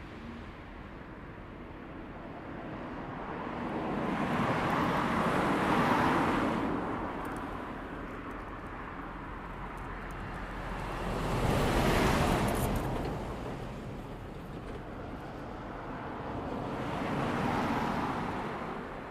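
Rushing noise that swells and fades three times, about six seconds apart.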